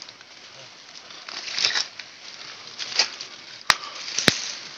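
Footsteps and rustling on a steep forest trail, with crunching swells twice and two sharp clicks near the end.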